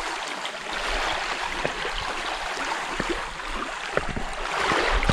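Small lake waves lapping against a rocky shore: a steady watery rush with scattered small splashes.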